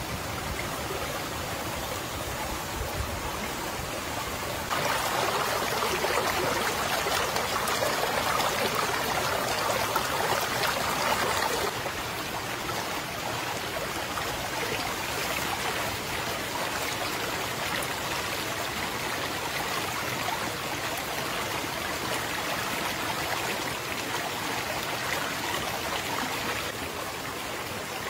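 Flowing jungle stream, a steady rush of running water that turns louder for several seconds from about five seconds in.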